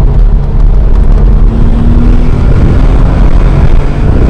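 Audi RS4 B5's 2.7 V6 biturbo engine and road rumble heard from inside the moving car, a steady low drone with the engine note rising slightly about a second in.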